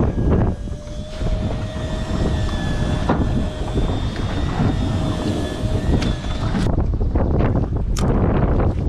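Strong wind buffeting the microphone on a boat's deck, a loud, heavy rumble. Over it a thin, steady mechanical whine runs for about six seconds and cuts off suddenly, followed by a few sharp knocks.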